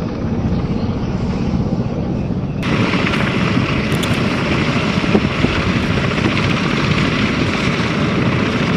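A steady low rumble of wind on the microphone, then about two and a half seconds in, a sudden switch to the steady noise of MV-22 Osprey tiltrotors running close by, their rotor downwash blasting dust across the ground.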